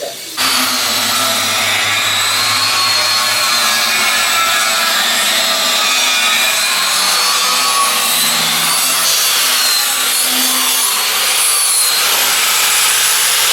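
Angle grinder running steadily under load on sheet steel, a harsh hiss with a wavering high whine, starting about half a second in.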